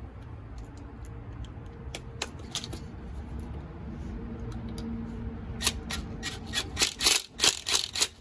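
A cordless impact tool fires in short repeated bursts, about three a second, driving the 12 mm bolts on a scooter's front brake caliper. It starts about five and a half seconds in. Before that there are only a few faint clicks of the caliper and tools being handled.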